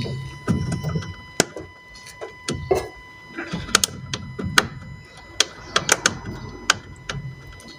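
Front suspension strut top mount (damper top) clunking and clicking irregularly as the steering is turned with the car standing still, with low knocks between the sharper clicks: the symptom of a worn damper top.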